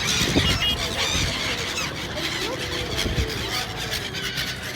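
A flock of gulls calling: many short, high cries overlapping one another, with a low rumble fading out over the first second.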